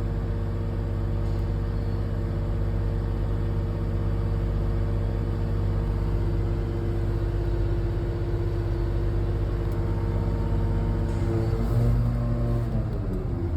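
Engine of a 150-ton Zoomlion mobile crane running steadily. Near the end it briefly grows louder, then its pitch falls as the engine speed drops.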